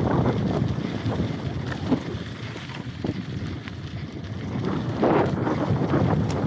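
Wind buffeting the microphone of a bike-mounted camera over the rumble of mountain-bike tyres rolling down a hard-packed gravel trail, with scattered rattles and knocks from the bike over bumps. It eases somewhat in the middle and picks up again about five seconds in.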